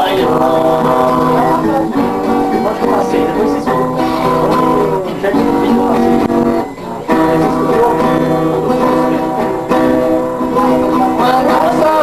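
Viola caipira and nylon-string acoustic guitar played together, with male voices singing a Brazilian country song in held phrases and short breaks between lines.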